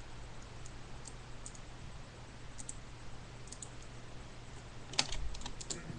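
Faint, scattered clicks from a computer keyboard and mouse, with a quick run of louder clicks about five seconds in. A low steady hum runs underneath.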